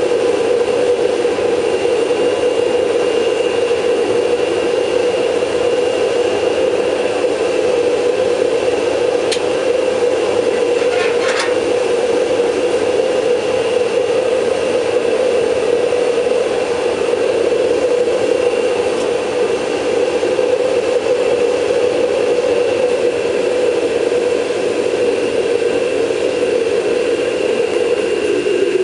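Homemade gas forge running, its burner fed by a vacuum cleaner used as the blower: a loud, steady roar with the vacuum motor's thin high whine over it. Two brief clicks come about nine and eleven seconds in.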